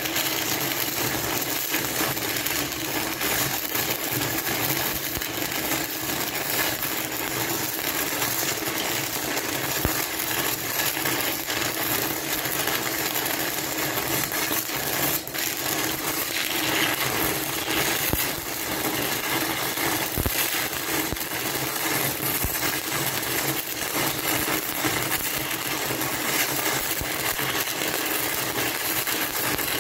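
Stick-welding arc of an E6010 electrode crackling steadily while an overhead root pass is run.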